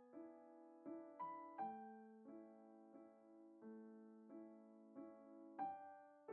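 Quiet background piano music: slow single notes, each struck and left to ring out before the next.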